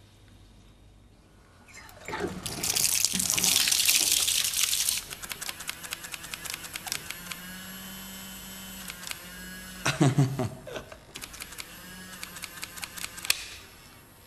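Bath water splashing loudly for a few seconds in a foam-filled bathtub, then quieter sloshing with fine crackling, and another short splash about ten seconds in.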